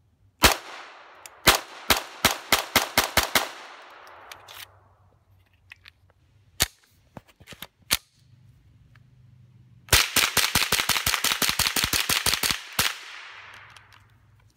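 Semi-automatic .22 rimfire gunfire with a short echoing tail after each shot. First comes a string of about ten shots from a Chiappa Citadel 1911-22 pistol, speeding up after the first two. After a pause there are a couple of single shots, then a rapid string of about sixteen shots, five or six a second, from a scoped Marlin Model 60 rifle.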